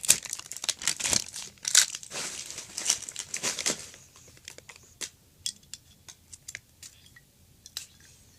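Packaging crinkling and tearing as an item is unwrapped by hand, busy for the first half, then thinning to a few light taps and clicks of handling.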